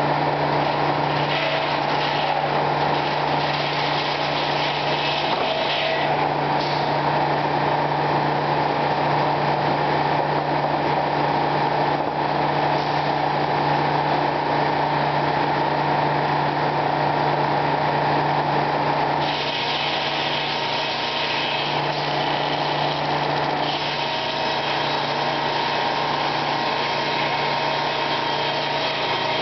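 A circular sawmill running: the big head saw blade and its drive give a steady, loud mechanical whir with a constant hum underneath, easing slightly about two-thirds of the way through.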